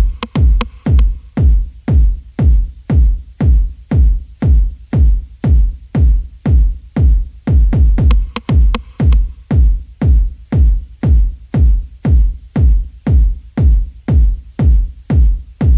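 Electronic dance music with a heavy, steady kick drum beating about twice a second.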